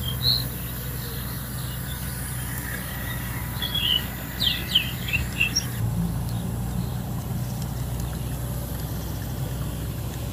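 A few short bird chirps a few seconds in, over a steady low outdoor hum.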